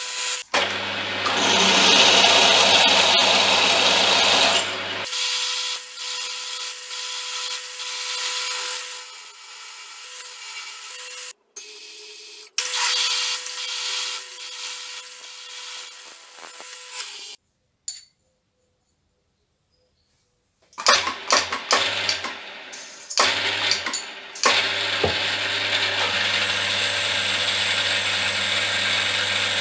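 Benchtop milling machine running with a steady whine as a tool is fed down into a steel lathe chuck jaw held in the vise. The sound breaks off into silence for about three seconds past the middle, then the machine runs on.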